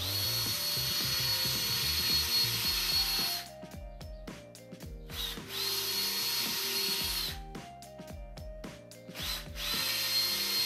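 Black & Decker cordless drill boring holes through a PVC pipe in three separate runs. In each run the motor whine rises as the drill spins up and drops away as it stops. The first run is the longest.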